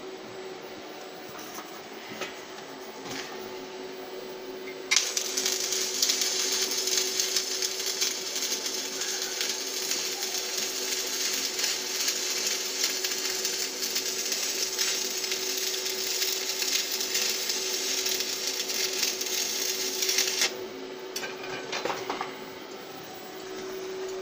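Stick-welding arc from an inverter welder with a 6013 electrode, running a continuous bead on 14-gauge steel tube: it strikes about five seconds in, crackles and sizzles steadily in a dense hiss for about fifteen seconds, then cuts off suddenly. A steady low hum underlies it, with a few light clicks after the arc stops.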